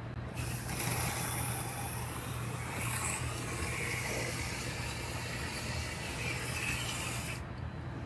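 Cavity wax spraying through an extension wand inside a steel truck frame rail: a steady hiss that starts about half a second in and cuts off near the end, over a steady low hum.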